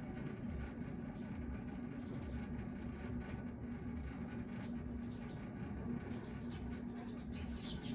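A steady mechanical hum with a low rumble and a slightly pulsing mid-pitched tone. Faint short high chirps come in over it during the second half.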